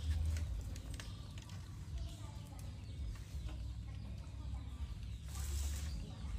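Chickens clucking, over a steady low rumble and a few faint clicks.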